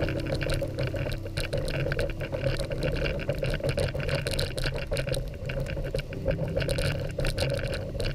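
Dog sled gliding over snow behind two Siberian huskies: a steady hiss and scrape from the runners, with many small clicks and rattles from the sled.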